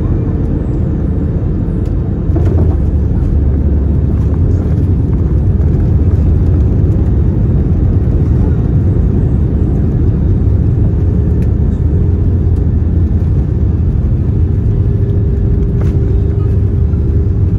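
Cabin noise of an Airbus A321-231 rolling down the runway after landing: a steady low rumble from its IAE V2500 engines and the wheels on the runway. It gets louder about two seconds in, and a faint steady hum sits under it at the start and near the end.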